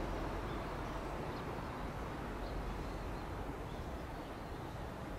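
Steady low outdoor background rumble, with a few faint, short bird chirps scattered through it.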